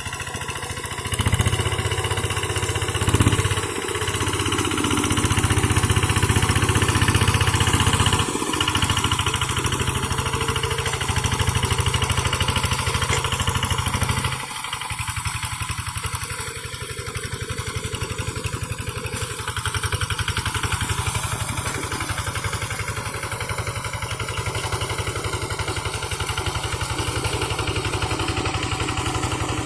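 Quick G1000 hand tractor's single-cylinder Kubota RD diesel engine running steadily while pulling a harrow. It runs louder at first, then drops abruptly about halfway through to a quieter, steady run.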